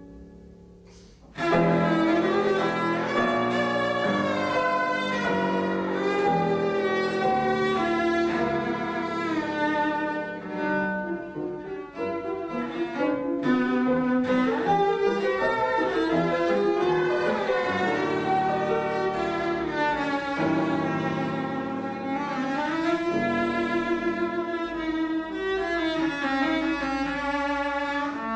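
Cello played with the bow, a melody with wide vibrato. After a faint, fading passage it comes in loudly about a second in.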